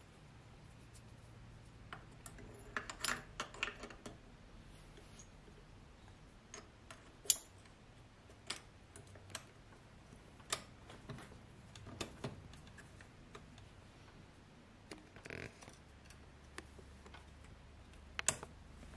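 Small metal clicks and light knocks from hand work on a dirt bike's rear brake caliper, as the pads and a screwdriver tap against it. They come irregularly, with a quick cluster about three seconds in and one sharper click about seven seconds in.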